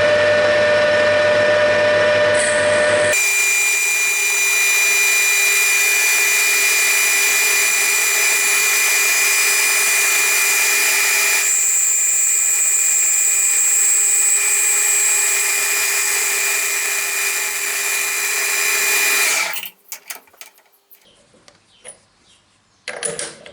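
Lathe running, turning a piece of dense azobé hardwood: a loud, steady machine whine that changes in tone twice. It stops shortly before the end, leaving a few light knocks and clatter.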